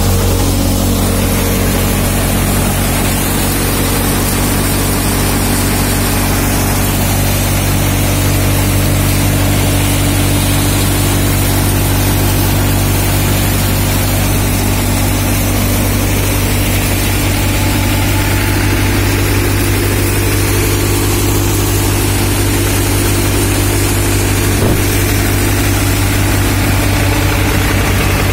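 Tractor diesel engine running steadily, driving a multi-crop thresher through its PTO shaft, with the thresher running along with it while threshing chickpeas.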